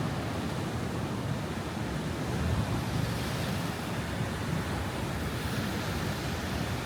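High ocean waves breaking on a rocky shore: a steady rushing surf that swells a little now and then, with wind buffeting the microphone.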